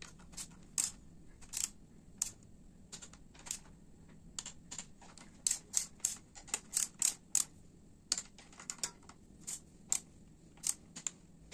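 Ratchet-head torque wrench clicking in short, irregular runs of sharp clicks as it tightens the front axle clamp nuts at the foot of a Honda XR 250 Tornado's fork, to 1.2 kgf·m.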